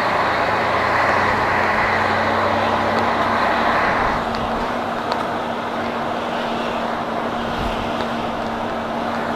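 Truck engine running and road noise heard inside the cab while driving. About four seconds in the sound drops a little and settles into a steadier hum.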